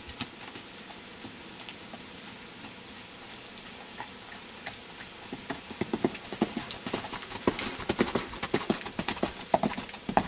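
Horse's hoofbeats on a sand arena, faint at first, then louder and closer together from about halfway as the horse comes near.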